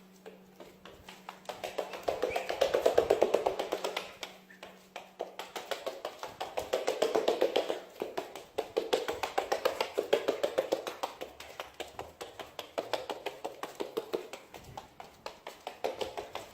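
Rapid, even tapping that swells and fades in loudness several times, like a percussive music track.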